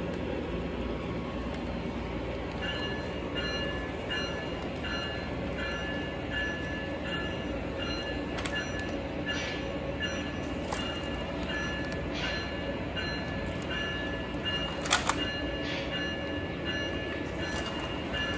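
O gauge Lionel model train running on three-rail track, with a steady rumble of motor and wheels. From about three seconds in, a ring repeats about one and a half times a second, like a locomotive's sound-system bell, and a few sharp clicks come through, the strongest near the end.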